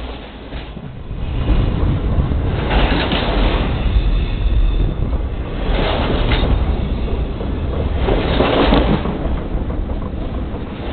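Railway cars rolling directly overhead, heard from between the rails: a steady low rumble of wheels on track, swelling into louder rushes about three, six and eight and a half seconds in.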